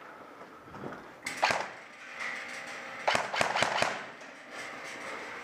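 Airsoft guns firing: a short burst of sharp snaps about a second in, then a longer string of rapid shots around three seconds in.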